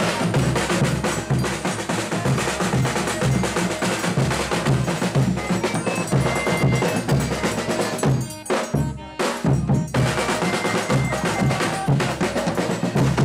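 Folia de Reis band playing a fast chula: caixa drums beating quickly with accordion. The playing breaks off briefly about eight seconds in and starts again.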